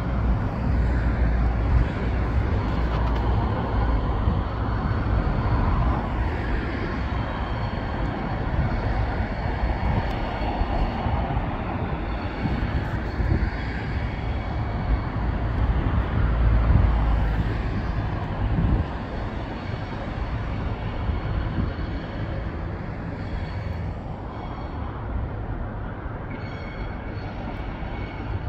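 Irish Rail 071 class diesel locomotive's EMD two-stroke V12 engine running under load as it hauls a laden spoil train away, with the wagons rumbling over the track. The sound slowly fades as the train draws off.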